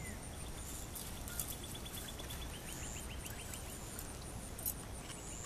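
Outdoor field ambience: insects chirping in a rapid, even series for about three seconds over a steady low rumble, with two faint clicks.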